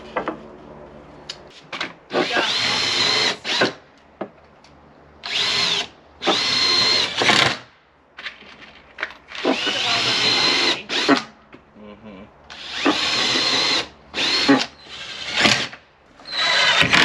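Cordless drills run in short bursts of about a second, about eight times, against the pine slats of a wooden bed frame. Each burst starts with a rising whine that settles into a steady high whir.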